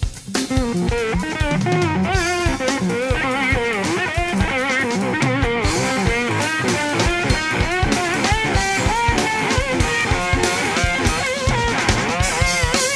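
Instrumental band music: an electric slide guitar plays a fast, wavering lead line over a drum kit.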